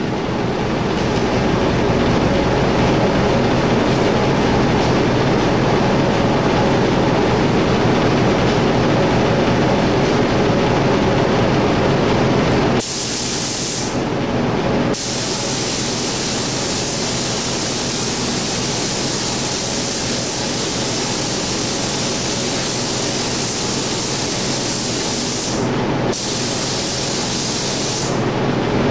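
Steady machine drone with a low hum, then from about 13 seconds in a paint spray gun hissing as it lays on a coat of paint, with short breaks where the trigger is let go.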